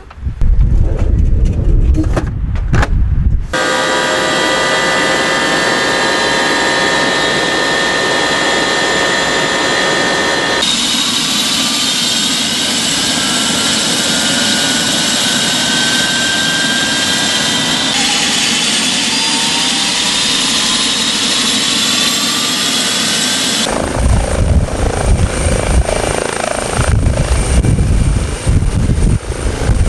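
Helicopter with twin turbine engines and its rotor running: a steady, high turbine whine in several tones, which rises in pitch for a few seconds as the engines spool up. In the last seconds a heavy, buffeting low rumble of rotor wash takes over as it lifts off.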